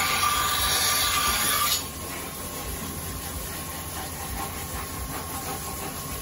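Flat of a deba kitchen knife ground against a large spinning wet grinding wheel, smoothing the blade's wide flat: a loud hissing grind that stops about two seconds in when the blade is lifted off. After that only the wheel runs on, a steady rumble with a faint whine.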